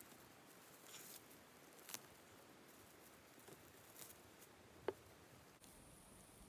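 Faint scratching and rustling of bare hands digging through soil and grass around a king bolete to pull it out, with a few soft ticks scattered through otherwise near silence.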